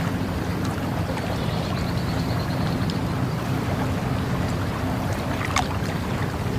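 Steady flowing water with a low rumble, under a fast, high insect trill that runs for a couple of seconds. A brief high chirp sounds near the end.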